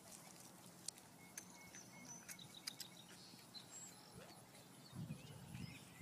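Near silence: faint outdoor ambience with scattered light clicks and a brief low rumble about five seconds in.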